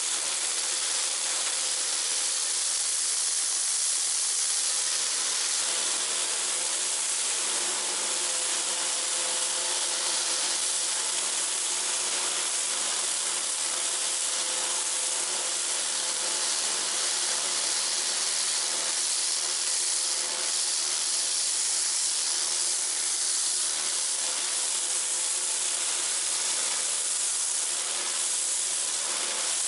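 Kärcher K2 Compact electric pressure washer blasting a jet of water onto a rough concrete wall: a loud, steady hiss of spray with a faint steady hum underneath.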